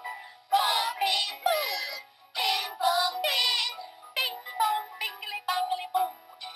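A children's song sung in a high, synthetic-sounding voice, in short phrases with brief gaps.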